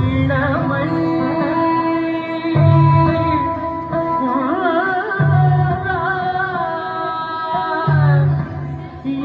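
Carnatic-style song: a singer holding long, ornamented notes that waver and slide in pitch, with a deep drum stroke about every two and a half seconds.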